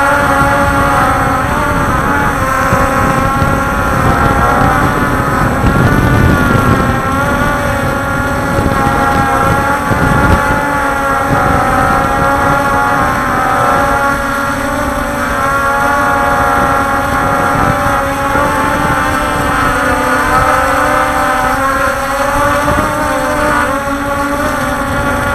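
Quadcopter drone's motors and propellers whining steadily at close range, several pitches wavering up and down together as the rotor speeds shift while it flies, over a low rumble of wind on the microphone.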